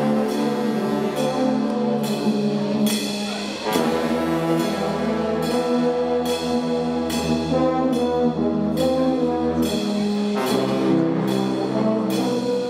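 Guggenmusik carnival brass band playing: sousaphones, trumpets and trombones in full chords over a steady drum beat. The music dips briefly about three and a half seconds in, then a deep sousaphone bass line comes in.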